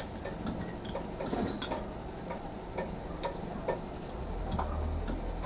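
Small metallic clicks and scrapes at uneven intervals from an 8 mm hand tap being turned with an adjustable wrench, cutting new thread into a stud hole in a Honda TMX 155 crankcase. A low steady hum comes in about four seconds in.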